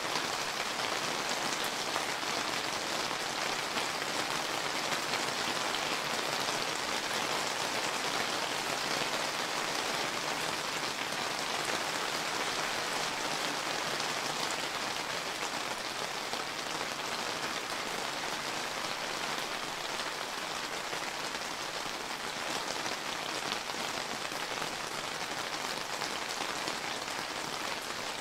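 Steady summer rain falling and pattering on surfaces, an even hiss of many small drops.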